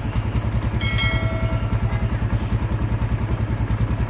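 Kawasaki Barako motorcycle's single-cylinder four-stroke engine idling steadily, with even, regular exhaust pulses.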